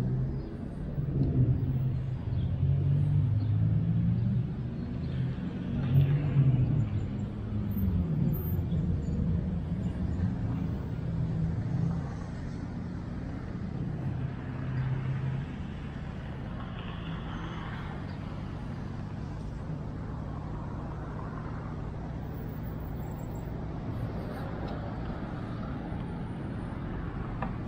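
Road traffic on the streets around the square: a low rumble that is louder and uneven for the first dozen seconds, then settles into a steadier, quieter hum.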